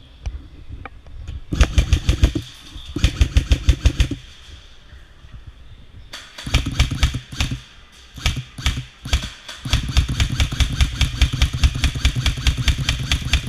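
Electric airsoft rifles firing on full auto: rapid, evenly spaced shots over the whir of the gearbox. A short burst about a second and a half in, another near three seconds, then long, almost unbroken bursts from about six seconds on with a brief pause near nine seconds.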